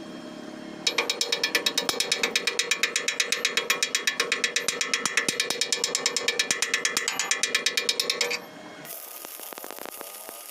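A rapid, even mechanical clatter of about seven clicks a second with a ringing tone, starting about a second in and cutting off abruptly near the end.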